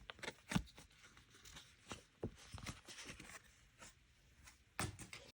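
Photocard pack wrappers rustling and tearing as the small cards are handled, with a few sharp clicks and taps of the cards, about half a second in, just after two seconds and near the end.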